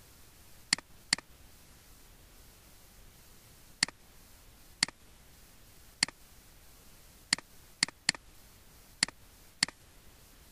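Computer mouse button clicks: about ten single sharp clicks at uneven intervals, two close together about a second in and a quick run of three between seven and eight seconds in, over a faint steady hiss.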